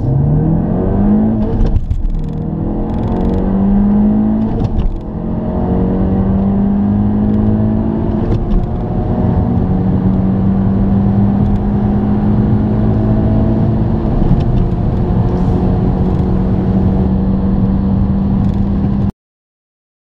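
A hot hatchback's turbocharged four-cylinder engine accelerating at full throttle through the gears: the note climbs, drops at upshifts about two and five seconds in, then climbs slowly and steadily in a high gear toward 200 km/h. It cuts off suddenly about a second before the end.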